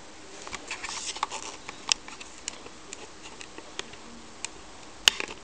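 Clear plastic DVD case and disc being handled by hand: a cluster of light plastic clicks and rustles in the first two and a half seconds, scattered single ticks, and a sharper click near the end.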